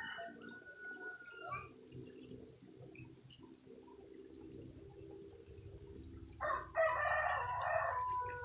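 A bird call with a held tone near the start, then a louder, longer call about six and a half seconds in that holds a steady note for over a second, over a low steady background noise.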